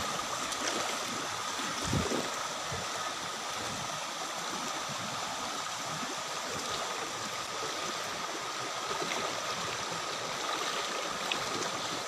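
Shallow stream water rushing steadily over rocks, with a single soft thump about two seconds in.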